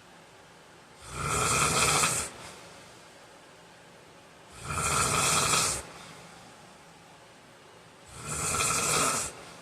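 A man snoring in his sleep: three loud snores, each lasting just over a second, coming evenly about three and a half seconds apart.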